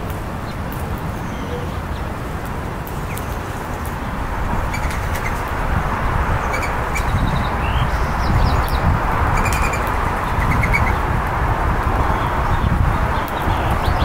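Short, high chirps and brief trills from small songbirds, over a steady rushing background noise that grows louder about four seconds in.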